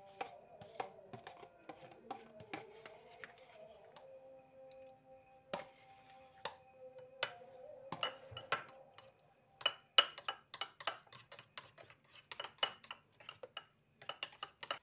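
A metal spoon clinking and scraping in a porcelain bowl while yogurt is stirred, with quick clicks coming thick and fast in the second half. Soft background music plays throughout.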